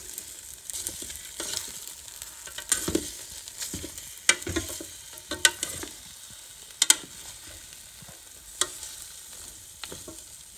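Kitchen tongs clacking against the metal crisping basket of a Ninja Foodi air fryer as hot chicken wings are turned, in irregular sharp clicks over a faint steady sizzle from the wings.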